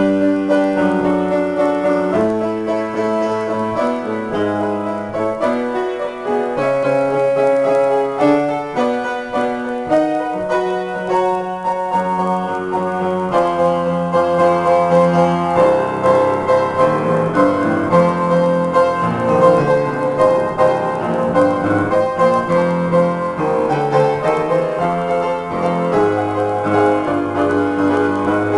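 Solo grand piano improvisation: chords and melody notes change every second or so, and from about halfway a higher note repeats steadily over a busier texture.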